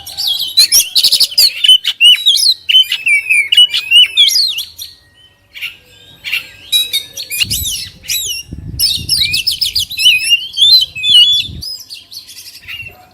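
Oriental magpie-robin (kacer) singing a loud, varied song of quick whistles, rising and falling sweeps and rapid trills, with a short break about five seconds in. A low rumble runs under the song for a few seconds in the second half.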